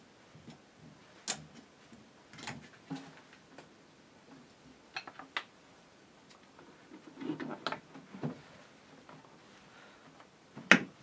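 Scattered knocks and clinks from handling a homemade butter churn and steel pots, with one sharp knock near the end. The churn's fan motor is not running.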